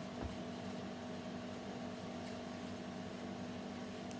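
Steady mechanical room hum, like a fan or air conditioner running, with a soft low thump about a quarter second in and a faint click near the end.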